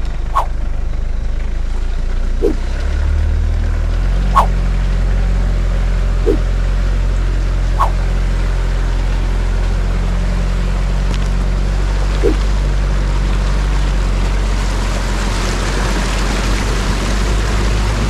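Mitsubishi Pajero 4x4's engine running steadily in low-range four-wheel drive, its note stepping up about four seconds in. From about fourteen seconds, water starts washing around the vehicle as it drives into the river ford. A few short chirps sound over the engine.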